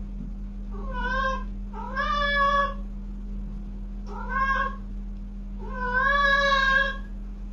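Cat meowing four times in drawn-out calls, the last the longest, over a steady low hum.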